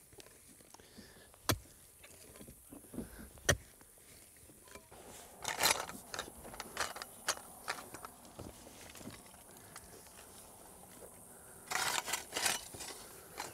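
Hand-digging a trench in soil: a few sharp single strikes of a mattock biting into the ground, then a shovel cutting and scraping through the dirt, in clusters of scrapes and knocks about halfway through and again near the end.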